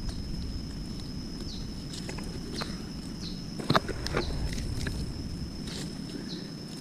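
Forest ambience: a steady high-pitched insect drone over a low rumble, with a few short snaps and rustles, the loudest a little under four seconds in.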